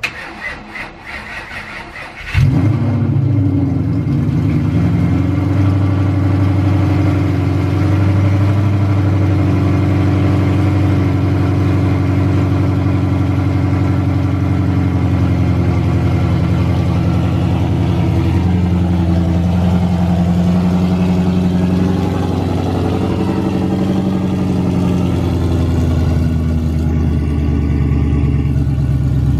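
Ford Coyote 5.0 L V8 cold start: the starter cranks for about two seconds, then the engine catches with a sudden jump in loudness and settles into a steady, loud fast idle.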